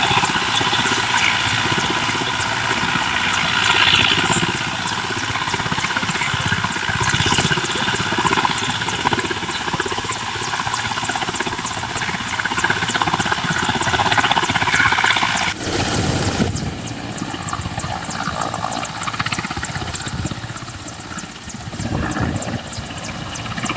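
Helicopter rotor chopping loudly and steadily, a rapid even beat over a dense noise. About fifteen seconds in the sound drops abruptly and loses much of its hiss.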